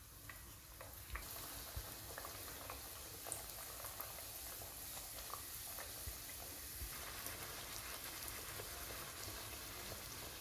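Dal puri (lentil-stuffed flatbread) deep-frying in hot refined white oil: a steady sizzle with scattered small crackles and pops, growing louder about a second in.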